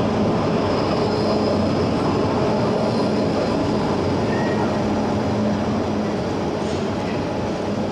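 A rail vehicle running, a steady rumble with a low hum that eases slightly toward the end.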